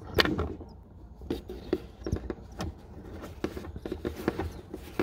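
Irregular close-up rustling and sharp clicks: handling noise from a phone camera pushed into a nest of newly hatched Daurian redstart chicks.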